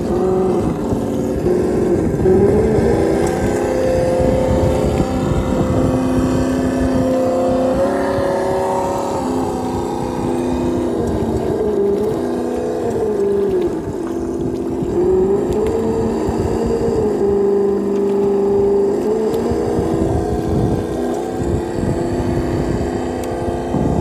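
Traxxas TRX-4 RC crawler's electric motor and drivetrain whining as it crawls over rocks, the pitch rising and falling again and again with the throttle. Low rumbling underneath.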